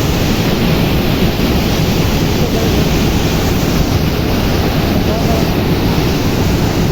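Floodwater pouring through the open spillway gates of a dam in full flow, a loud, steady rushing rumble.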